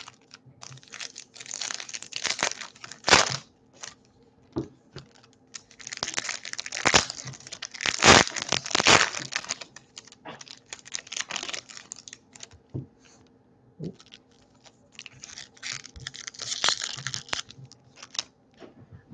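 Foil wrappers of 2018 Topps Series 2 baseball card packs being torn open and crinkled by hand, in several bursts of crackling with short pauses between.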